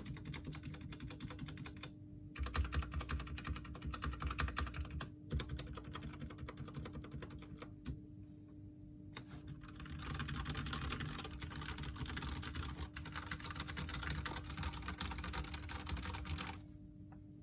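Typing on a Royal Kludge RK98 mechanical keyboard with its stock RK red linear switches: fast runs of keystroke clatter with a short lull near the middle, stopping shortly before the end.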